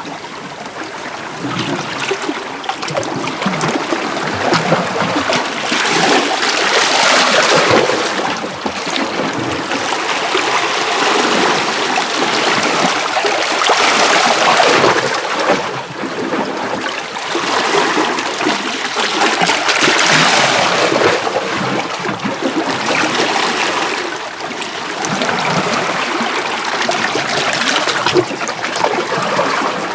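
Small sea waves washing in and out over shoreline rocks, with water trickling and splashing among the stones. The wash swells and ebbs about every six or seven seconds.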